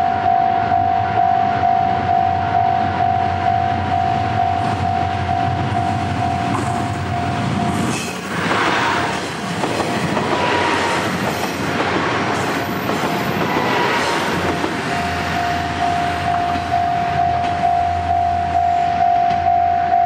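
A level-crossing warning bell rings in a steady repeating rhythm. About eight seconds in, a KiHa 40/KiHa 48 diesel railcar train passes close by while accelerating, and its engine and wheel clatter drown out the bell for about six seconds. Then the bell is heard again as the train moves away.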